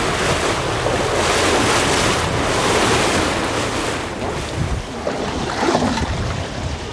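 Wind buffeting the microphone over open sea, with waves washing and a few low thumps in the second half.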